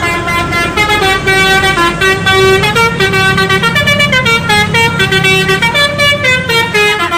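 Indonesian bus telolet horn playing a running tune, its notes changing in quick steps several times a second, over the low running of the bus engine.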